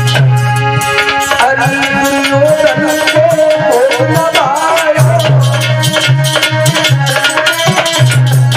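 Instrumental interlude of a Hindi devotional bhajan: a dholak drum plays a quick, continuous rhythm with deep bass strokes, under harmonium and a melodic line that bends in pitch.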